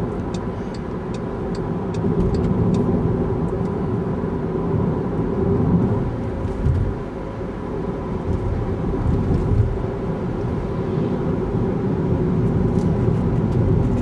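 Steady road and engine noise heard from inside a moving car at city-road speed. A quick regular ticking, about two to three ticks a second, runs for the first few seconds and then stops.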